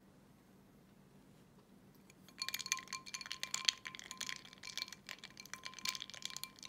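Ice cubes clinking against a glass tumbler as an iced matcha latte is stirred: a quick, irregular run of bright clinks that starts about two seconds in.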